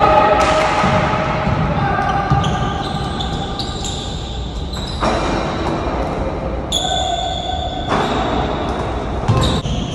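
Pickup basketball game: a basketball bouncing a few times on the court, with players' voices calling out indistinctly.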